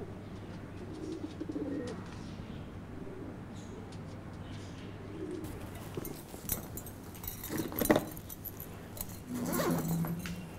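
Pigeons cooing, a series of low coos through the first five seconds over a steady low hum. A few knocks and rustles follow in the second half, the loudest about eight seconds in.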